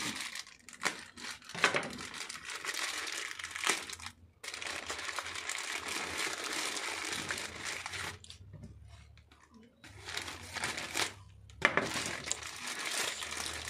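Plastic courier mailer bag crinkling and rustling as it is handled and torn open by hand, with sharp crackles and a couple of short pauses.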